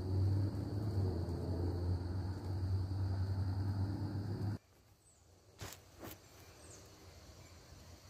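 Wind buffeting the microphone in a low rumble, which cuts off suddenly a little past halfway. After it, two sharp clicks about half a second apart over a faint outdoor background.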